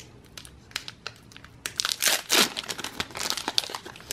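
Foil Pokémon booster pack wrapper crinkling as it is handled and opened, in a run of short crackles with a louder stretch about halfway through.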